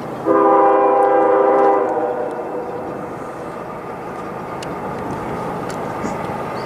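CSX locomotive air horn sounding one chord blast of about a second and a half, over the steady rumble of the train rolling past.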